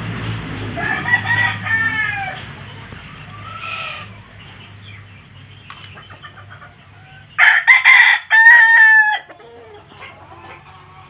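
Rooster crowing once, about seven seconds in, lasting nearly two seconds and the loudest sound. Before it, in the first few seconds, come a few shorter chicken calls.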